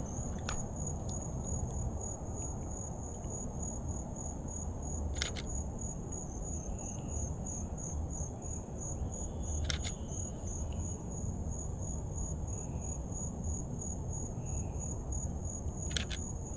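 Insects chirping in a steady, fast-pulsing high drone, with a camera shutter clicking three times, about every five seconds.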